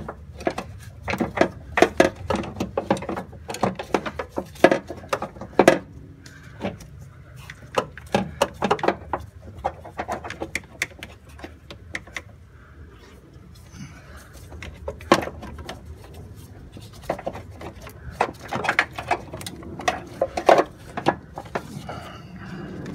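Irregular clicks, knocks and rattles of hands and tools working among the metal lines, plastic parts and wiring around a car's clutch master cylinder, coming in clusters with short pauses between.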